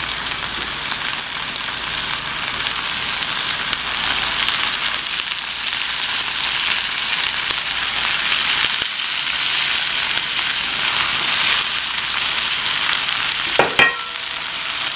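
Shrimp sizzling as they go into a hot, oiled pan of sautéed vegetables: a steady frying hiss. Near the end, two quick metallic clinks of a spoon against the pan.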